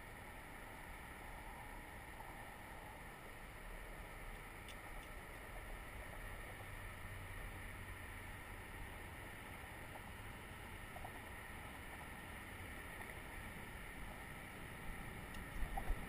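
Steady rolling noise of a Cannondale bicycle on a paved path, mixed with wind on the microphone. A few light knocks come near the end.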